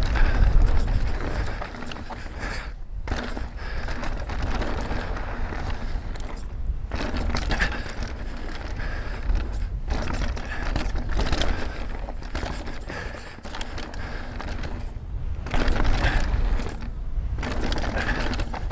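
Mountain bike riding fast down a dirt trail: tyres rolling and crunching over the ground and the bike rattling, with a heavy low rumble that drops away briefly a few times.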